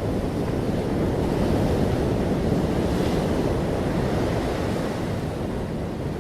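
Heavy ocean surf rumbling steadily, with wind buffeting the microphone.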